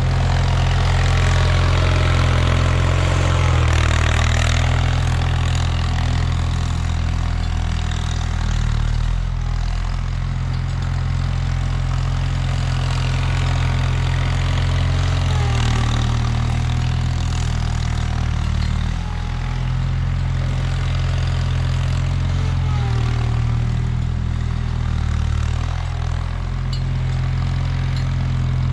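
1979 Bolens HT-23 garden tractor's 23 hp opposed-twin Kohler K582 engine running steadily, its pitch stepping down and back up slightly several times.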